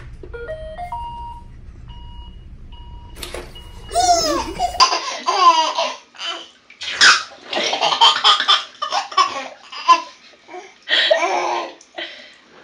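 A robot vacuum plays a short rising run of start-up tones as its button is pressed, followed by a few evenly spaced beeps. A baby's loud voice breaks out about three seconds in. From about five seconds in, the loudest sound is a baby laughing in repeated bursts of belly laughs and giggles.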